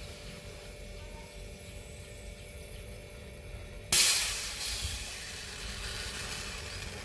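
A sudden loud hiss of escaping gas starts about four seconds in and fades away over roughly three seconds.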